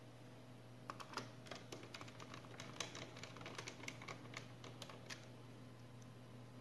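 Faint, irregular small clicks and ticks of a small screwdriver turning the side screws that fix a laptop SSD in its mount, starting about a second in and stopping about five seconds in.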